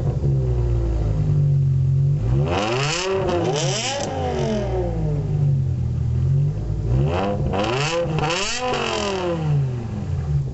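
BMW E60 M5's V10 idling, then revved in two bursts, each a couple of quick blips where the pitch climbs and drops back, a couple of seconds in and again about seven seconds in, before settling back to idle.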